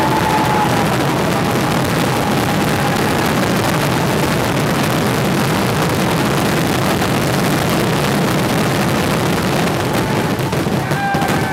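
Fireworks finale: a dense barrage of explosions going off so fast that they merge into one steady rumble. Faint whistles come in near the end.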